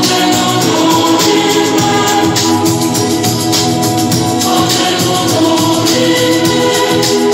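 Upbeat music with several voices singing over a quick, steady percussion beat.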